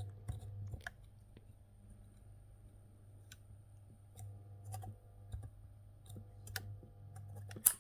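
Low hum of an old transformer soldering gun, fading in and out as it is switched on and off, with scattered small clicks and taps of the tip and wire being worked at a speaker terminal. One sharper click near the end.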